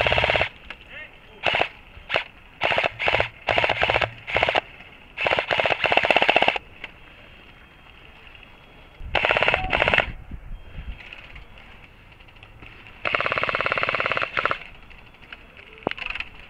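Airsoft guns firing on full auto in rapid bursts: a string of short bursts in the first few seconds, then longer bursts about nine seconds and about thirteen seconds in.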